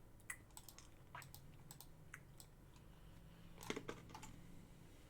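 Faint computer-keyboard typing: scattered irregular key clicks, with a slightly louder cluster of clicks a bit over halfway through.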